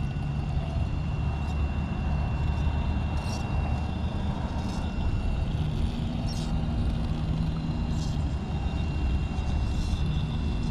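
RC rock crawler's electric motor and gear drivetrain whirring as it crawls over an obstacle, the pitch rising and falling with the throttle, with a few sharp ticks of the tyres and chassis against rock.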